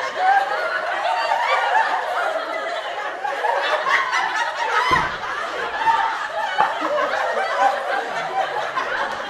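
Continuous laughter from many overlapping voices.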